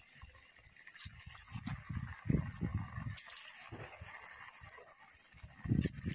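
Soybean fritters sizzling and bubbling in hot oil in a wok, a steady hiss. Low rumbles come and go, the strongest near the end.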